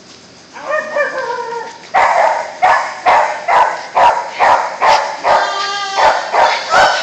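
Dog whining once, then barking in an even run of sharp barks about twice a second, with a high yelping whine mixed in near the end. This is excited barking while it waits at the start line to be released for a sprint.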